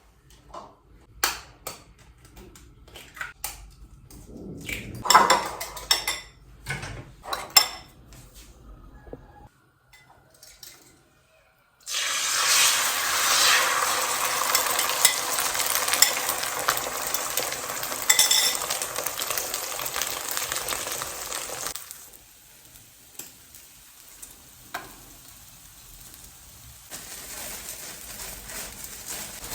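Clinks and knocks of utensils against dishes and a pan, then a loud sizzle of eggs frying in hot oil that starts suddenly about twelve seconds in and stops about ten seconds later. A few quieter clinks follow, and a fainter sizzle returns near the end.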